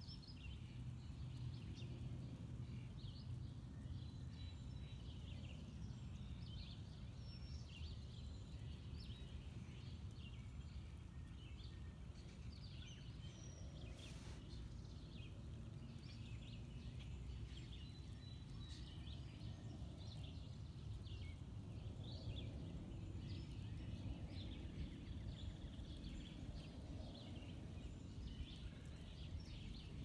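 Outdoor ambience: a steady low rumble under many short, high bird chirps scattered throughout, with a single sharp click about halfway.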